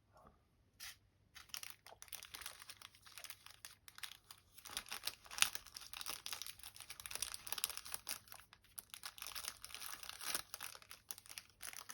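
Plastic packaging crinkling as small bags of a screen-protector kit are handled: a couple of isolated crackles, then a continuous run of small crackles from about a second and a half in.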